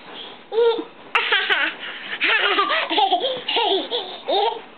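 A toddler laughing in short repeated bursts of high-pitched giggles, beginning about half a second in.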